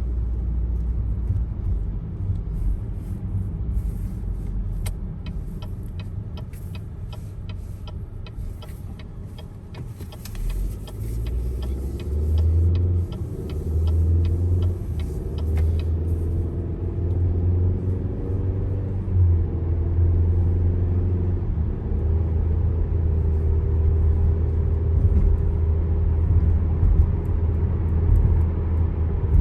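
Car on the move: a steady low rumble of engine and tyres that grows louder about ten seconds in as the engine note picks up, with a run of light ticks through the first half.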